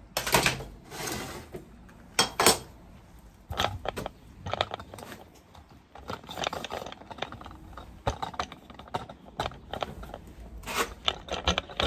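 A series of irregular scraping and rubbing strokes on the steel exhaust bracket as its surface is cleaned so soapstone will mark it.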